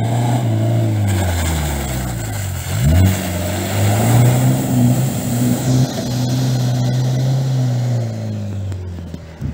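Turbocharged engine of a lifted Opel Monterey off-roader running under load through mud. Its pitch drops and then climbs sharply again about three seconds in, then holds steady as it drives on.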